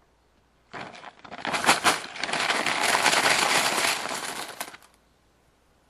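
Small hard objects rattling and clattering in a dense, noisy jumble. It starts about a second in and stops near the end, lasting about four seconds.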